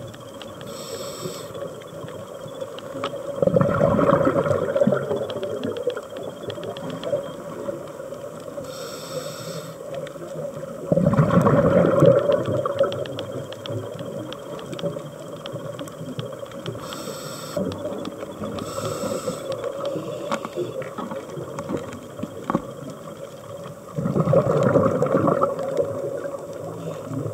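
Scuba diver breathing through a regulator underwater, heard through the camera housing: short hissing inhalations, each followed a few seconds later by a longer rumble of exhaled bubbles, about every eight seconds. Faint clicks throughout.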